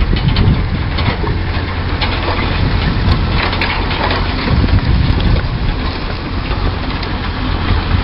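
A large steel-wheeled plough is hauled past over stubble, its frame and wheels rattling and crunching over a steady low engine hum.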